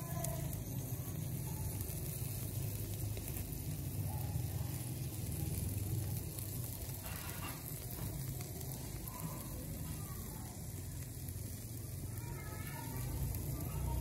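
Small whole birds grilling on a wire rack over glowing charcoal, sizzling steadily, with a low rumble underneath.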